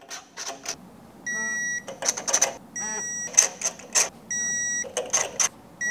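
Electronic torque wrench beeping four times, about a second and a half apart, each short steady beep marking a spark plug reaching its 15 ft-lb torque setting. Between the beeps the wrench's ratchet clicks as each plug is turned in.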